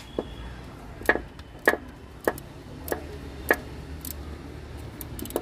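Socket wrench working the timing-belt tensioner bolt of a Maruti 800 engine: a series of sharp metallic clicks, about one every half second.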